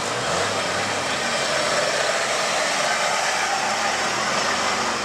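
A vehicle engine running steadily under a loud, even rushing noise, with a faint low hum in the first second or so.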